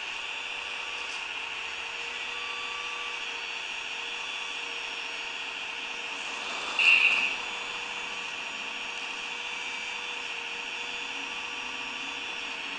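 Small electric motors of a radio-controlled model excavator whining steadily, with a brief louder burst about seven seconds in.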